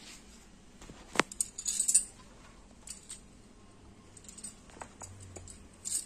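A sharp click and a clink, then a short burst of rustling, and a few scattered small ticks: small things being handled at a home puja altar as flowers are offered.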